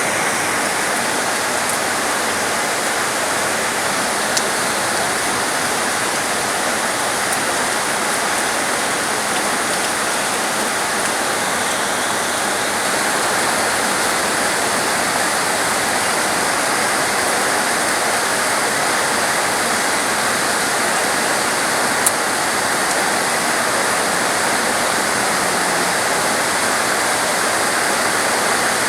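Heavy rain shower pouring down steadily, a dense even hiss of rain with no letup.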